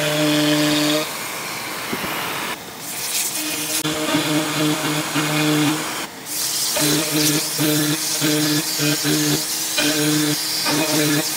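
DIY LowRider CNC router running and cutting into a wooden panel: a steady whine at first, then a hiss of air from a shop-vacuum nozzle pulling sawdust. Through the second half the whine cuts in and out in short spurts, many times over.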